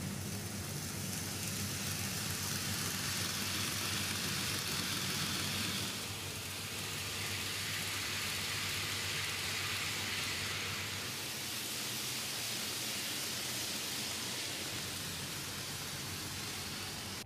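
N gauge model trains running on the layout's track: a steady hiss of wheels and motors, with a low hum underneath that dips slightly about six seconds in.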